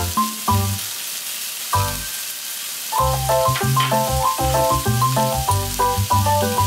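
Chopped yardlong beans and chilies sizzling as they stir-fry in a wok, a steady hiss under background music of short, quick pitched notes. The music thins out for about two seconds near the start, leaving mostly the sizzle.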